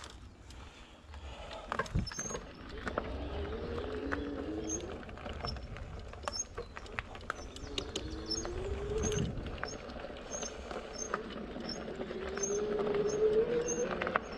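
Nakto 36V 300W fat-tyre e-bike's hub motor whining, rising in pitch three times as the bike picks up speed. Underneath are a low rumble and scattered clicks from the fat tyres rolling over the woodland trail.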